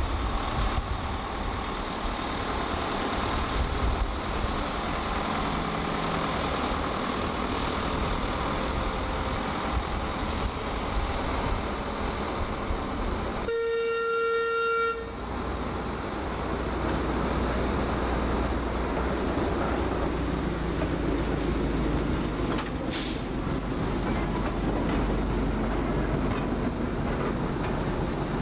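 Shunting locomotives running slowly in a railway yard, with a steady low engine rumble. About halfway through there is one clear toot from a locomotive, lasting about a second and a half.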